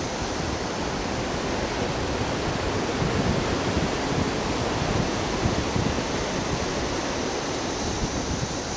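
Steady outdoor rushing noise with irregular low rumbling buffets, swelling slightly midway.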